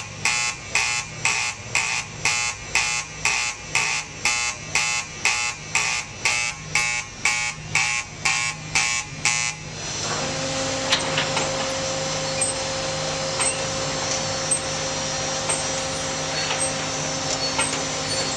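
Baler's start-up warning buzzer sounding in rapid pulses, about two and a half a second, for roughly ten seconds. Then it stops and a steady machine hum of the baler and its conveyor running takes over, with a few faint ticks.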